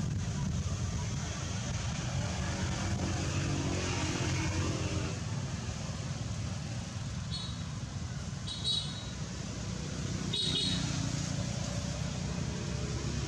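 Steady low rumble of motor traffic, with three short high chirps about halfway through.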